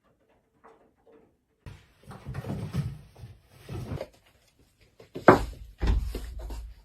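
Rustling and clattering, then a sharp knock about five seconds in and a second bang with a low rumble just after, like a cupboard door or object being knocked about.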